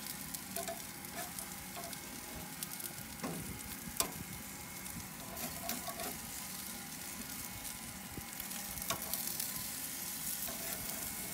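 Barbecue-sauced chicken leg quarters sizzling on hot gas-grill grates, with a few sharp metallic clicks of tongs and a spatula against the grates as the pieces are turned, the sharpest about four seconds in.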